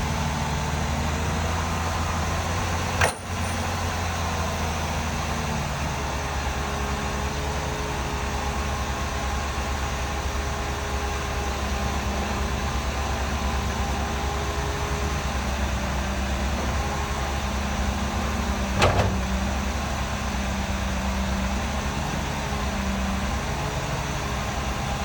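Heavy diesel earthmoving machinery, a bulldozer or dump truck, running with a steady low rumble that rises and falls a little under load. There is a sharp click about three seconds in and another one later on.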